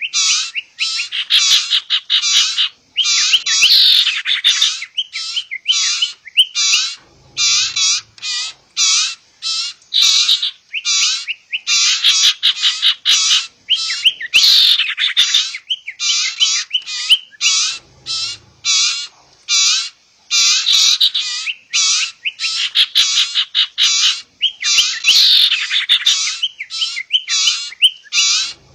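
Lure recording of sirtu birds, adult calls mixed with the calls of young birds: rapid, unbroken, high-pitched chirping. The sequence repeats about every ten seconds as a loop.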